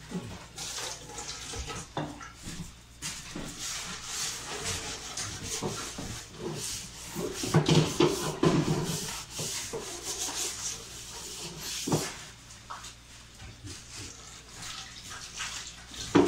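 Scraping and rustling of leftover food being scooped into foil trays, with light clatter of metal pans and a sharp knock about twelve seconds in.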